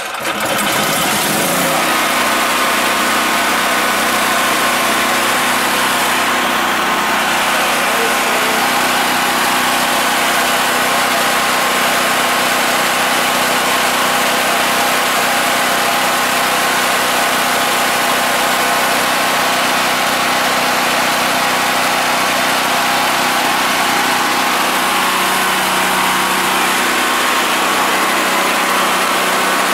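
Yamakoyo SH7000DXE generator's 13 hp single-cylinder gasoline engine running steadily on gasoline just after starting.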